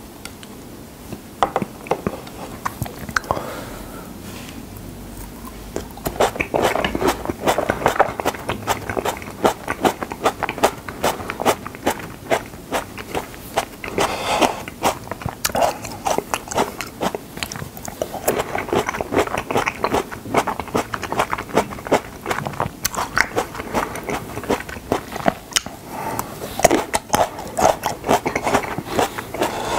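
Whole cherry tomatoes being bitten and chewed close to the microphone: a dense run of small wet pops and chewing noises that starts in earnest about six seconds in, after a few scattered clicks.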